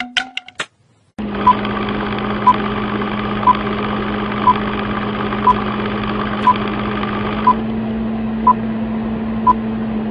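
Film-countdown leader sound effect: a steady whirring hum with a short high beep once every second, nine beeps in all, after a few brief clicks at the start. The hum thins out about three-quarters of the way through and cuts off at the end.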